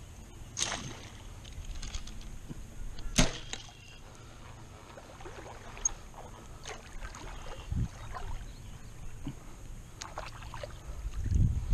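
Bowfishing bow shot: a sharp snap about three seconds in, with lesser clicks around it. Low sloshing of wading through shallow floodwater runs beneath, and a low rumble of wind on the microphone rises near the end.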